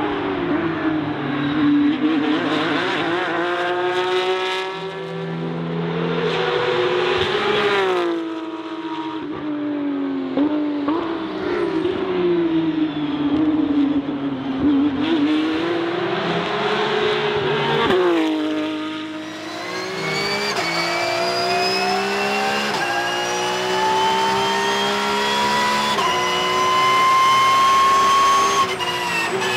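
Porsche 911 GT3 Cup (992) race car's naturally aspirated flat-six revving hard on track, the engine note swinging up and down as it accelerates, shifts and brakes. About two-thirds of the way through it is heard from inside the cockpit, a long climbing engine note under full throttle with brief dips at the upshifts, dropping back near the end.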